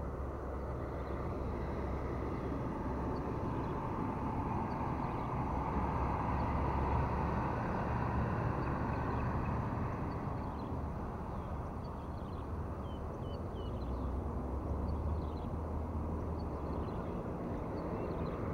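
Road traffic noise with a low rumble, one vehicle swelling past from about a quarter to just over half way through, and faint bird chirps above it.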